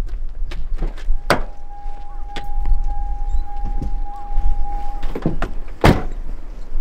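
A pickup truck's driver door unlatching with a click, then a steady single-pitch warning tone sounding for about four seconds while the door stands open, then the door slammed shut with a loud thud near the end. Low wind rumble on the microphone underneath.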